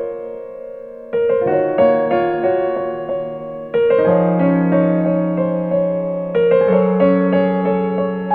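Piano music played back through a KT88 valve amplifier with a MUSES01 op-amp in its input stage, recorded off SEAS Bifrost loudspeakers. Chords are struck about a second in, near four seconds and again after six seconds, each dying away slowly.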